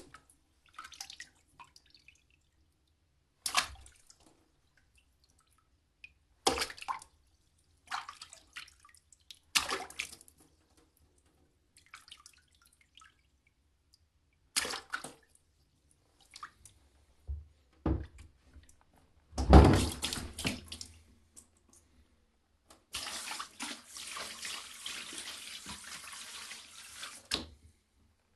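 A series of separate water splashes, about ten, each a sudden hit that dies away within a second or so, with silence between them; the loudest comes about two thirds of the way through. Near the end comes a longer rushing splash lasting about four seconds that cuts off suddenly.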